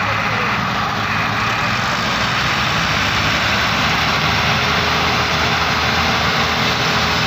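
Several tractor diesel engines running together under heavy load, straining to pull a loaded sugarcane trolley that is stuck in soft ground. The sound is loud and steady throughout.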